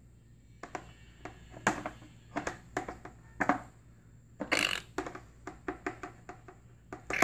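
Irregular taps and knocks from inside a hollow prop egg, staged as a chick pecking at its shell before hatching, with a short scratchy rustle about halfway through.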